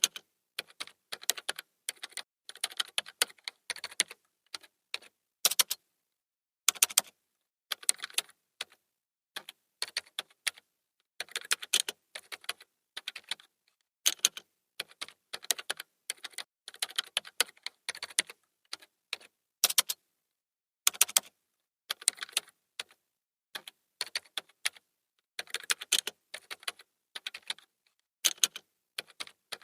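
Computer keyboard typing: quick runs of key clicks in irregular bursts, broken by short pauses.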